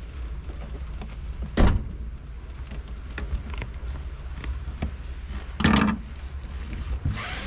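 Small plastic clicks and rattles from a tackle box being handled on a pickup truck bed, over a low steady rumble. A sharp thunk comes about a second and a half in, and a second loud knock a little before six seconds.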